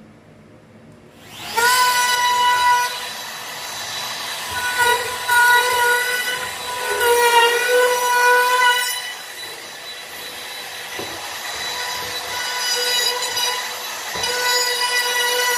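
Handheld wood trimmer (compact router) switched on about a second and a half in, its motor running with a steady high whine. The whine swells and eases as the bit is fed along the edge of the board, dropping back for a few seconds past the middle.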